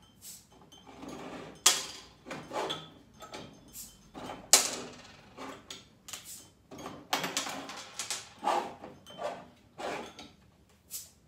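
Small 210 mL glass Corona beer bottles being opened and handled on a table: a series of clicks and glass clinks as metal caps come off and bottles are set down, with two sharper cracks about one and a half and four and a half seconds in.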